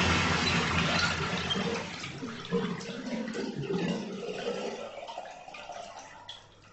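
Water rushing in a small bathroom, then dying away after a couple of seconds into scattered trickles that fade out.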